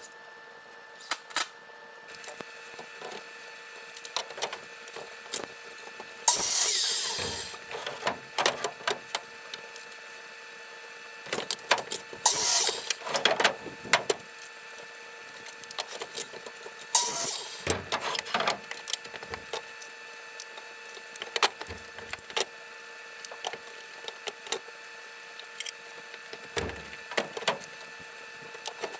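Wooden boards being handled on a work bench: scattered knocks and clatter, with three louder scraping sounds about a second long, over a faint steady hum.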